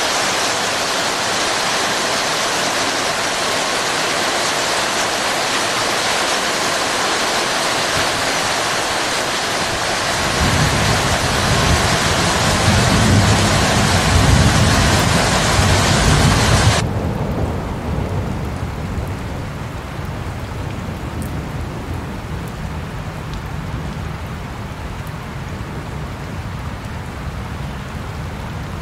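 Heavy rain falling steadily. About ten seconds in, a low rumble of thunder builds and swells, then at about 17 seconds the sound cuts suddenly to lighter, softer rain with a fainter rumble underneath.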